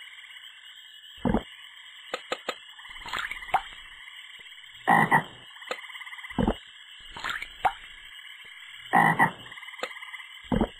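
Frogs croaking: loud single croaks come about every one to two seconds over a steady high-pitched background, with a few short clicks between them.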